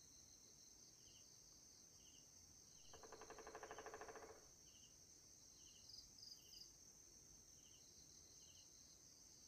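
Faint insect ambience: a steady high-pitched drone and short cricket chirps about once a second. About three seconds in, a louder, rapidly pulsing call lasts for about a second and a half.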